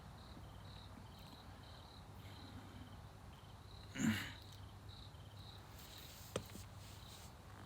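Crickets chirping faintly in short, evenly repeated high chirps. A brief louder sound comes about four seconds in, and a single sharp click comes later.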